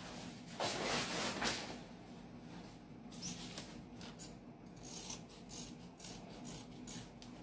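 Soft rustling and rubbing of freshly cut fabric and its pattern as they are lifted and handled, with a run of short crinkles over the last few seconds.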